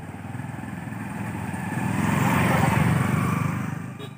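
Motorcycle engine passing close by, growing louder to a peak about two and a half seconds in, then dropping away near the end.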